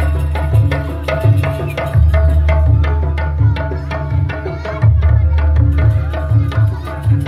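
Jaranan ensemble music: hand drums beating quick strokes over a repeating metallophone melody, with a deep low stroke about every three seconds.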